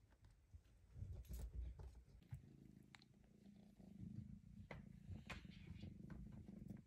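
Snow mink Bengal cat purring quietly, a steady low rumble that settles in about two seconds in while it is stroked, with a few faint clicks.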